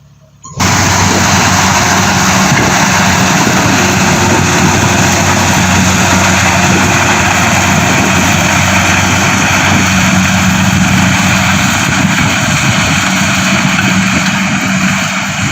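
Combine harvester running steadily: a loud, even machine noise with a low engine hum underneath, cutting in abruptly about half a second in.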